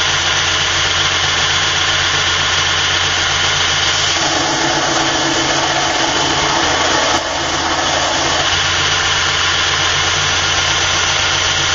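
Burr King belt grinder running at full speed with a steady hum. From about four seconds in to about eight and a half, a 1095 steel knife blade held in a tapering jig is ground against the belt over the platen, adding a harsher grinding sound. A brief click comes about seven seconds in.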